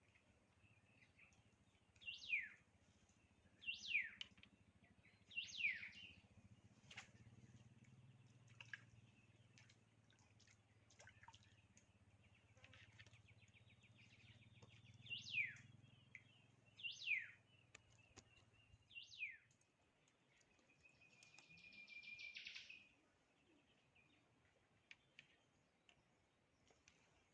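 A bird calling: sharp notes that fall steeply in pitch, three about a second and a half apart, then after a pause three more, followed by a buzzy trill lasting about a second and a half.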